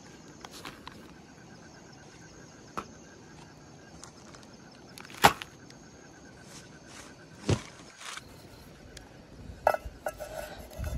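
Scattered sharp knocks and clinks of things being handled, about five spread apart, the loudest about halfway through, with a busier cluster of small knocks near the end. Underneath is a faint, steady background with an even pulsing.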